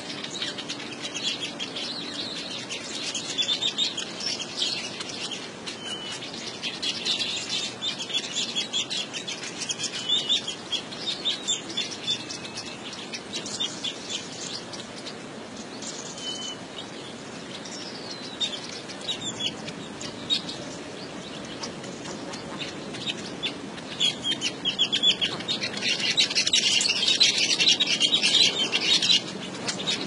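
Weaver birds chattering in a rapid, buzzy twitter with some wing flutter, growing louder near the end.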